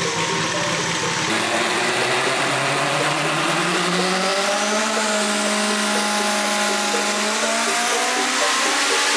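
Race car engine accelerating hard, its pitch climbing steadily with a small step near the end.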